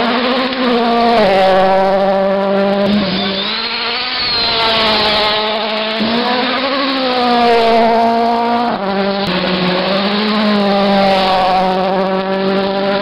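Rally car engine running hard through the stage, its note rising and dipping again and again with throttle and gear changes.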